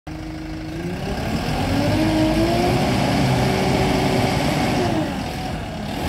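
Tata Hitachi Shinrai backhoe loader's diesel engine revving up under hydraulic load as the front loader arm is raised, holding at high revs, then easing back down near the end.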